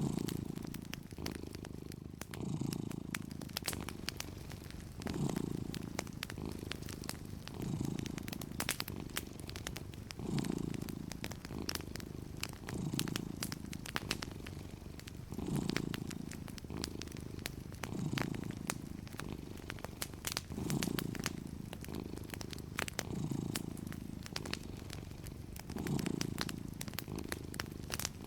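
Domestic cat purring steadily, the purr swelling and fading with each breath, louder about every two and a half seconds. Wood fire crackling over it with frequent small sharp pops.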